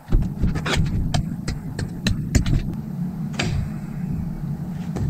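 Hand-held plastic spreader scraping body filler across a car's rear spoiler in a run of short, irregular strokes and taps, with one longer scrape about three and a half seconds in. A steady low hum runs underneath.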